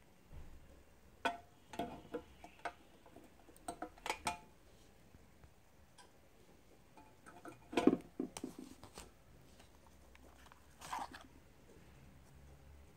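Scattered clicks and knocks of 18650 lithium-ion cells being handled, clamped into the probe fixture of a battery internal-resistance tester and taken out again; the loudest knock comes a little past halfway.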